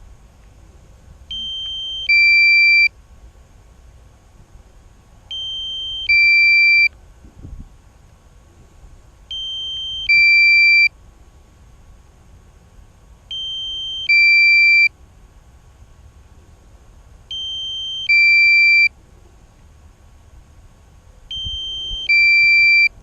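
Drone remote controller warning alert: a two-note electronic beep, a higher note followed by a louder, lower note, repeating every four seconds, six times.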